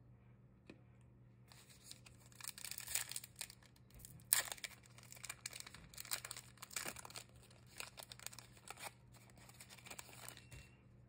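Foil wrapper of a Topps Big League baseball card pack being torn open and crinkled in the hands: a crackling rustle that starts about a second and a half in, with its sharpest crackle about four seconds in, and dies away near the end.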